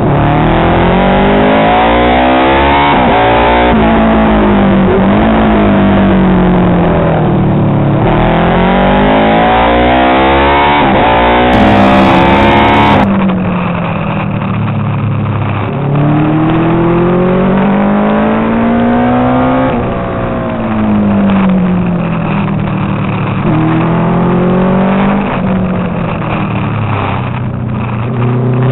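Engine of a Honda RC181 replica racing motorcycle heard from on board, its pitch climbing under throttle and dropping again over and over through gear changes and corners. A heavy rush of noise covers it for roughly the first half.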